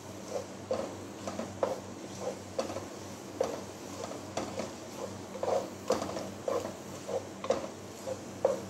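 Wooden spoon stirring and scraping a crumbly milk-cake mixture as it roasts in ghee in a nonstick pan: irregular scrapes and knocks about twice a second. A faint steady low hum runs underneath.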